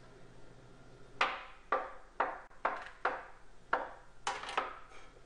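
About eight sharp knocks on a wooden baking counter, irregularly spaced over three and a half seconds, each ringing briefly.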